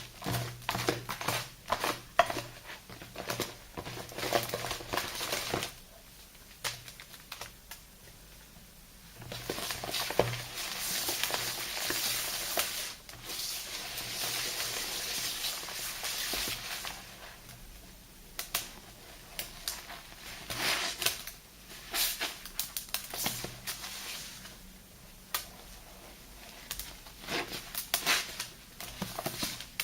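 Soapy paste of thick lather and sea salt being worked by hand: rapid wet crackling and clicking squishes, a short lull, then a steady hiss for several seconds, then more crackly clicking.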